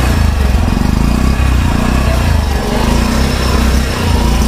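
Bajaj Platina 100's single-cylinder four-stroke engine idling steadily with a low, even pulsing, heard close up.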